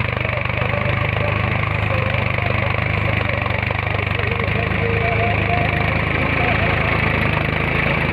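Mahindra four-wheel-drive tractor's diesel engine running steadily at low speed as it works through tilled soil.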